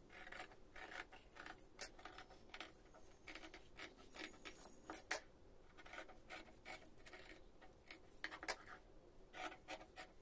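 Scissors snipping through folded canvas interfacing: a run of faint cuts at an uneven pace, a few of them louder.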